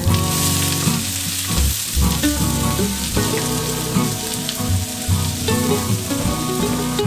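Sliced onions sizzle as they hit a hot stainless-steel frying pan, with a burst of hiss in the first second. They then fry steadily while being stirred with a wooden spoon, the start of caramelising them over medium heat. Background music plays underneath.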